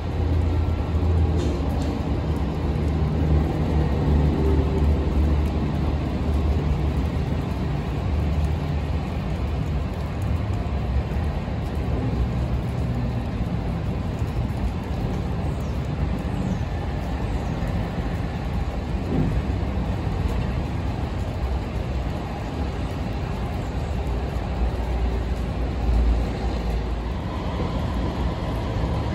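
Diesel freight locomotives running as the train approaches: a steady low rumble, with a droning engine hum through roughly the first ten seconds.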